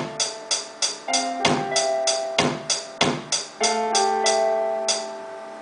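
Akai XR20 drum machine playing a beat: kick and snare hits in a steady rhythm under held synth chord notes that change several times.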